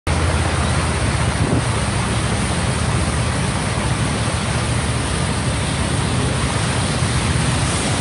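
Steady rushing noise with a fluctuating low rumble: wind buffeting a phone microphone over the hiss of traffic on a flooded street.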